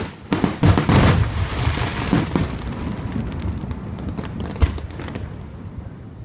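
Fireworks finale: a rapid run of aerial shell bursts, booming close together for the first two and a half seconds. It then thins out to one more sharp boom just past halfway, with scattered crackling pops.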